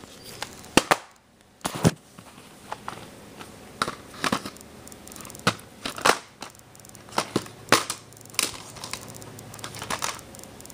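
A plastic DVD case being handled and opened: irregular sharp plastic clicks and snaps, with softer handling knocks in between.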